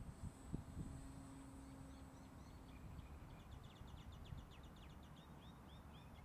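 Quiet open-air background with a low rumble and a couple of soft knocks about half a second in. In the second half a small bird gives a quick run of high, repeated chirps ending in a few curling notes.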